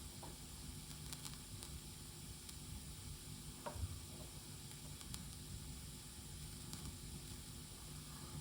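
Faint hiss and hum through a studio monitor fed from the Tascam LM-8ST mixer's left channel, with scattered sharp crackles and pops as its volume knobs are turned. The crackling is the sign of the mixer's defective left channel.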